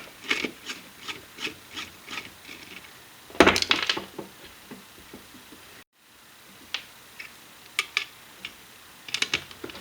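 Hands handling the open amplifier's parts and wiring: scattered light clicks and rubbing scrapes, with one louder rough scrape about three and a half seconds in. The sound drops out for a moment near the middle.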